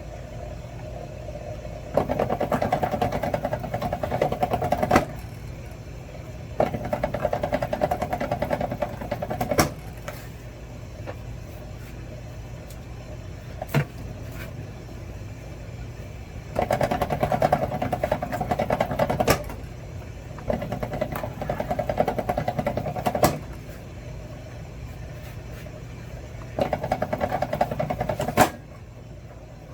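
Wire-stripping machine running in five bursts of two to three seconds as lengths of scrap wire are pulled through and stripped, each burst ending in a sharp click. A steady low hum runs underneath.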